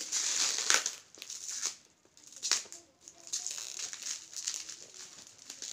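Plastic packaging crinkling and rustling as hands handle a plastic-wrapped box, in irregular bursts with a few sharper crackles. It is loudest in the first second.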